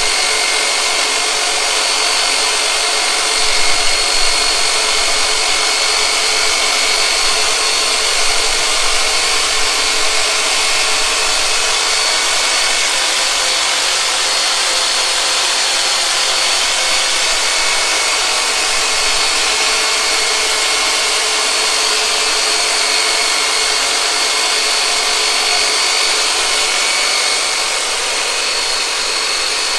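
Turbonator massage tool's electric motor running continuously at a steady speed, a loud even whirring with a high whine over it.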